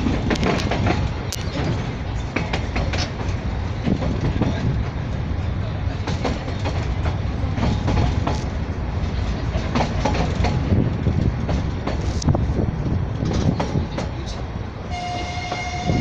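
Narrow-gauge children's railway train running, heard from aboard: a steady rumble of wheels on rail with scattered clicks. A horn sounds near the end.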